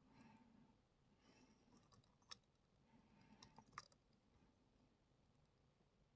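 Very faint clicking and light scraping of lock picks working the pins inside a Brady Abus 71/40 plastic-bodied padlock, with two sharper clicks a little past two seconds and near four seconds in.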